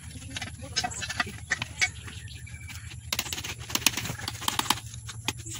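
Scattered clicks and light metallic knocks of hand tools and parts being handled on an aluminium motorcycle engine crankcase, busier and louder from about three seconds in.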